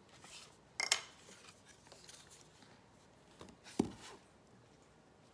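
Scissors freehand-cutting paper: a few sharp snips and clicks, the sharpest about a second in, with a duller knock just before four seconds.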